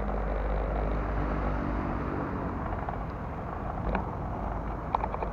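City street ambience: a steady rumble of road traffic, with a few short sharp clicks about four and five seconds in.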